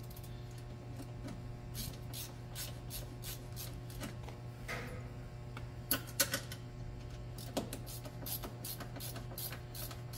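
A screw being driven by hand into a metal door shock bracket: a string of light, irregular clicks from the tool, about one or two a second.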